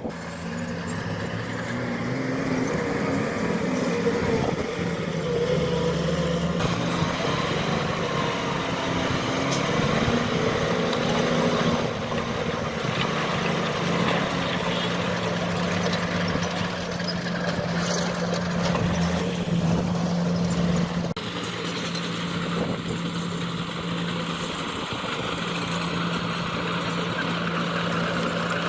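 Diesel engine of heavy earthmoving machinery running steadily, its pitch shifting now and then as it works under load.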